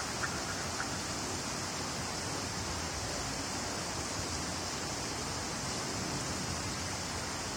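Steady rushing of flowing creek water, an even hiss with no breaks, with a few faint high chirps under a second in.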